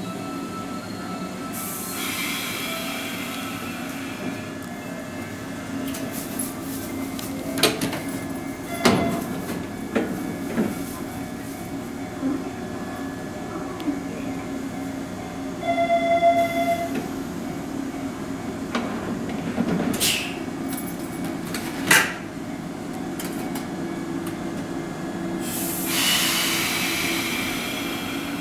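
Hanshin 7861/7961-series commuter train standing at a station platform: a steady hum from its onboard equipment, with two bursts of air hiss and a few sharp metallic clanks.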